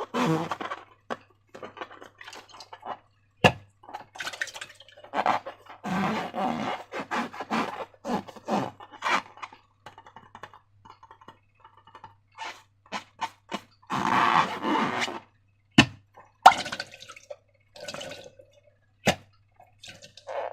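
Slime squelching, dripping and plopping as it is squeezed and handled, in irregular wet bursts, with a few sharp clicks.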